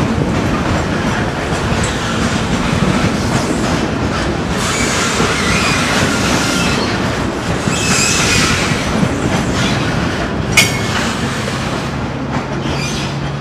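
Loaded grain hopper wagons rolling slowly over pointwork, the wheels clacking over the crossings and rail joints. Thin wheel-flange squeals come in the middle, and a sharp click sounds about ten and a half seconds in.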